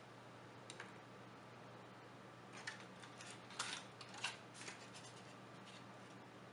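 Faint light clicks and taps as a spiral drinking straw and a paper cocktail umbrella are set into a stemmed glass. There is one click about a second in and a quick cluster about halfway through, over a faint steady hum.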